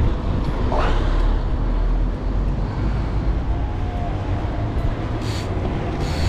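Wind buffeting the body-mounted camera's microphone as a mountain bike is ridden along a town road, a steady low rumble with road traffic around it. A brief rising sound comes about a second in.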